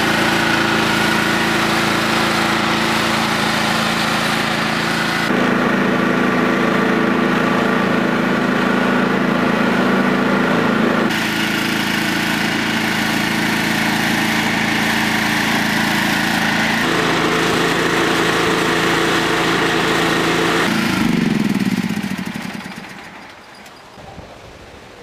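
John Deere riding lawn mower engine running steadily, its tone changing abruptly three times. About 21 seconds in, the engine winds down with a falling pitch and stops, leaving a faint hiss.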